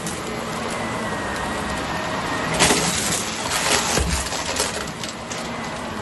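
Shark upright vacuum running with a steady whine. From about two and a half seconds in, a burst of rattling and crackling lasts a couple of seconds as small debris on the rug is sucked up.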